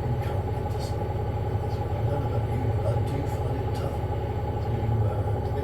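Hoover H Wash 700 washing machine (H7W 412MBCR-80) running its Rapid 14 cycle: a steady low hum with a constant higher tone over it and a few faint clicks.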